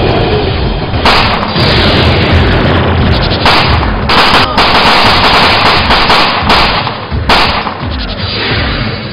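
Automatic rifle fire in long, dense bursts with short breaks between them, thinning out in the last couple of seconds.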